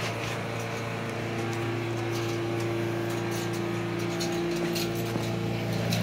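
Generac standby generator's engine running steadily while it carries the load after the transfer switch has thrown to backup power, growing louder near the end.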